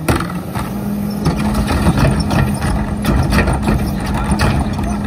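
Rear-loader garbage truck's diesel engine speeding up at the start and then holding steady at raised speed to drive the hydraulic cart tipper, which lifts and dumps a wheeled trash cart into the hopper. Repeated knocks and clatter of the cart and falling trash run over the engine.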